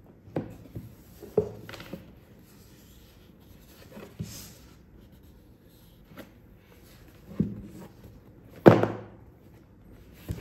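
A large rigid cardboard box handled on a wooden table: several separate knocks and soft scrapes as it is gripped, lifted and turned. The loudest knock comes a little before the end.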